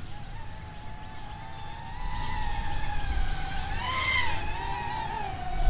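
Propel Star Wars speeder bike quadcopter drone's propellers whining in flight, a steady high hum whose pitch wavers with the throttle and rises briefly about four seconds in. A low rumble of wind on the microphone runs underneath.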